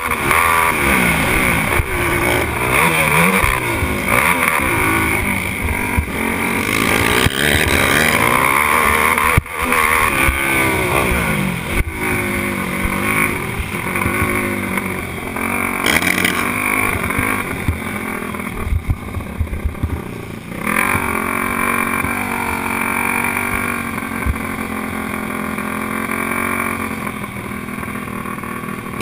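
Racing quad's engine heard from the rider's helmet, revving up and down as it accelerates and backs off around the track. For the last third it settles into steadier, lower running as the quad slows.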